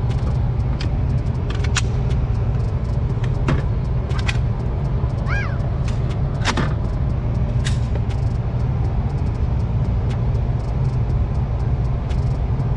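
Steady low rumble of an indoor shooting range, with a scattering of sharp cracks and clicks.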